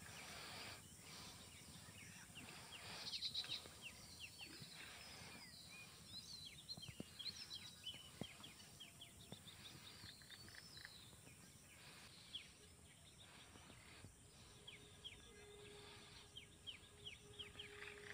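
Faint outdoor quiet with small birds chirping: several quick runs of short, high chirps. A faint steady hum comes in near the end.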